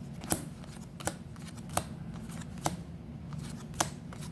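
Magic: The Gathering cards being flipped through one at a time, each card giving a sharp snap, about one a second, over a low steady hum.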